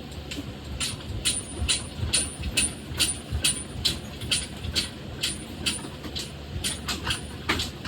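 Engine hoist being worked to lift a 1966 Jeep CJ5's engine out, clicking evenly about two to three times a second. The engine is held back by a motor mount that has not come free.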